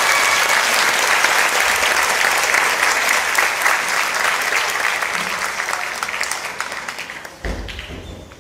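Theatre audience applauding at the end of a song, the clapping gradually dying away near the end, with a brief low thump just before it stops.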